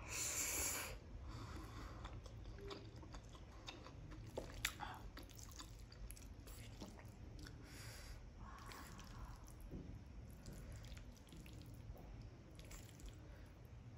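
Close-up eating sounds of instant masala noodles: a brief slurp as a forkful goes into the mouth, then wet chewing with small mouth clicks. A sharp click about four and a half seconds in, and another short slurp near eight seconds.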